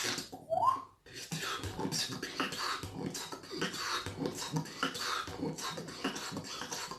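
Beatboxing: fast mouth-made percussion of clicks, hisses and snare-like bursts. A short rising sweep comes in the first second and a brief gap about a second in, then a dense continuous pattern.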